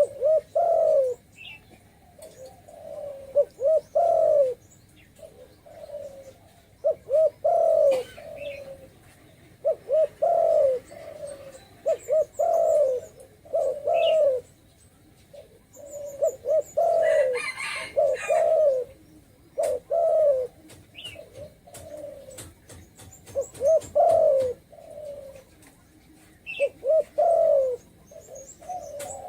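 Spotted dove (chim cu gáy) of the 'thổ rền' calling type, cooing in short repeated phrases every couple of seconds. A brief hiss sounds about midway, and a few faint, thin chirps come from another small bird.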